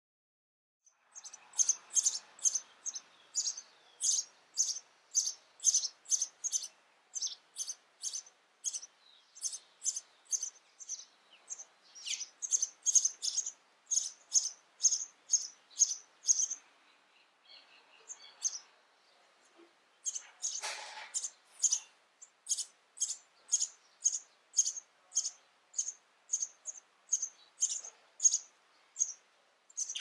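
House sparrows chirping: short, high chirps repeated about two a second. There is a pause of a few seconds past the middle, with a brief rustle in it.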